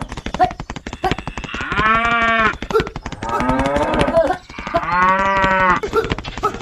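Cow mooing: two long moos, over a fast clicking rattle.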